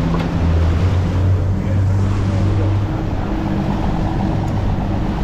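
Twin Suzuki outboard motors running in gear with a steady low hum, over the rush of churning wake water and wind.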